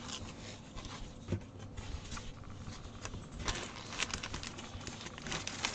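Faint rustling with scattered light clicks and taps as a stamped cross-stitch canvas is handled and unfolded.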